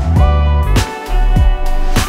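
Instrumental background music with deep bass and a steady beat.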